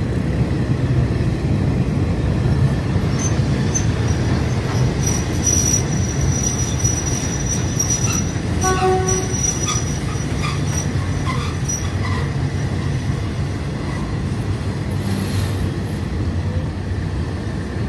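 Train running over the steel River Kwai Bridge: a steady rumble of wheels on the rails, with a thin high-pitched wheel squeal from about three to ten seconds in.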